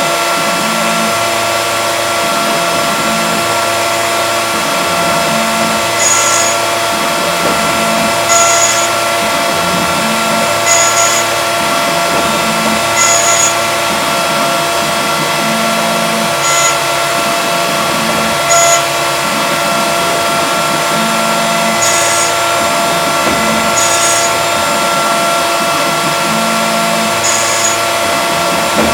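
CNC milling machine running: a steady high spindle whine over the hum of the axis drives, which rises and falls as the cutter moves back and forth, with short hissy bursts about every two seconds.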